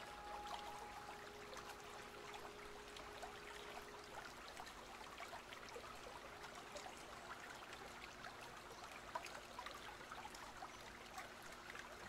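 Faint trickling water, a soft haze of tiny splashes and drips. A held ambient-music tone fades out over the first few seconds.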